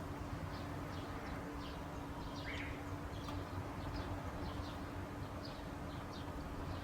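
Short, high-pitched bird calls repeated about twice a second, over a steady background hiss and a low hum.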